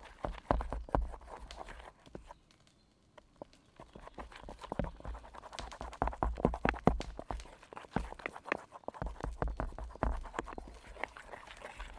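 Wooden stick stirring pancake batter in an aluminium mess tin, a quick run of clicks and knocks as the wood strikes and scrapes the metal sides, with a short pause about two seconds in.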